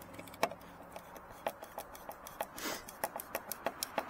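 Small irregular clicks and ticks from a screwdriver turning the screws of a chrome cab marker light and from the metal light housing being handled. The clicks come faster near the end.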